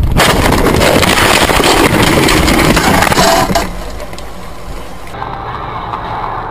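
A car's road and engine noise: a loud rushing noise that drops sharply about three and a half seconds in, leaving a quieter low rumble.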